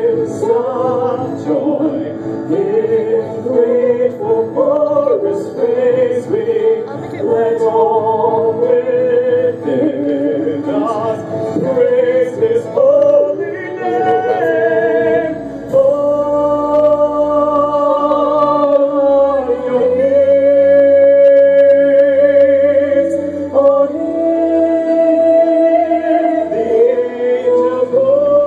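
Singing with instrumental accompaniment: a melody of long held notes with vibrato over sustained low notes, rising to a louder held passage about two-thirds of the way through.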